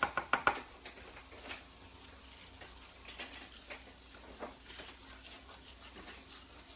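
A cooking utensil clicking and scraping against a pan as garlic is stirred: a quick run of sharp clicks in the first half second, then scattered light taps.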